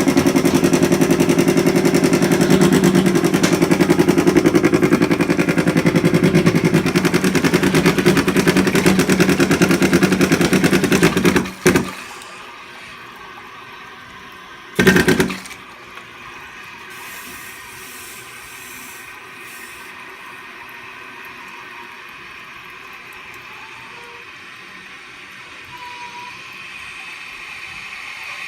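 A toilet filling after a flush makes a loud, rapid rattling knock as the tank nears full, then the rattle cuts off suddenly about 12 seconds in. One short knock comes a few seconds later. After that the water runs in with a quiet steady hiss and a faint high whistle, which stops just before the end.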